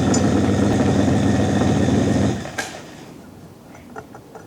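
Vacuum pump running loudly while it evacuates a bell jar, stopping suddenly about two and a half seconds in with a click. After that only faint ticking is left from the sound source inside the airless jar.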